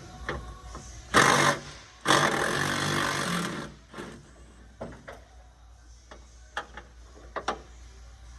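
A power wrench running in two bursts, a short one and then a longer one of about a second and a half, working a rear shock absorber fastener loose. A few sharp metal clinks follow.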